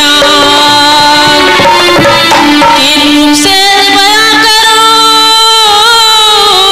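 Indian-style music: a long held, gently gliding melody line that shifts to a new note about three and a half seconds in, with percussion strokes in the first half.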